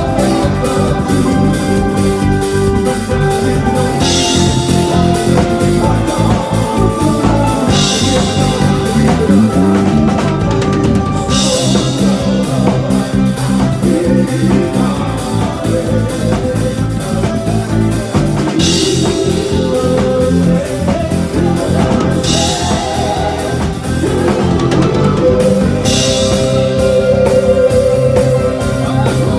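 Live band playing rock music with drum kit and electric bass guitar, heard from on stage beside the bassist.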